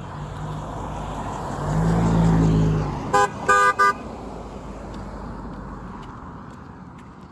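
A car drives past, its engine and tyre noise swelling and fading, then a car horn gives three quick toots about three seconds in, the middle one the longest.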